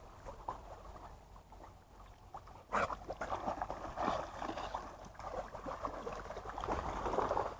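Shallow lake water splashing and sloshing as dogs wade and paddle through it. It is soft at first, then about three seconds in it turns suddenly into loud, busy splashing that keeps going.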